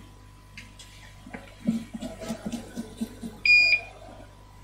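A single short electronic beep from the repair-bench equipment, one steady high tone lasting about a third of a second, about three and a half seconds in. Before it comes a run of soft knocks and taps.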